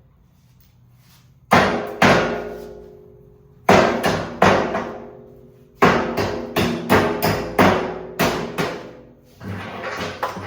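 Hammer blows on a metal wheelbarrow part being knocked loose during disassembly, each strike ringing briefly. Four spaced blows come first, then a quicker run of about eight, and softer knocks near the end.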